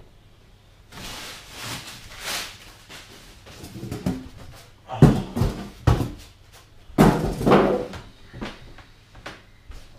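Handling noises on a wooden desk: rustling, then a cluster of sharp knocks and thuds about halfway through and another around seven seconds in.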